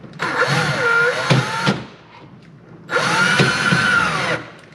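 Cordless drill with a 7/16 nut driver driving a lag bolt through a steel microwave mounting plate, in two runs of about a second and a half each; the motor whine sags in pitch under load and recovers.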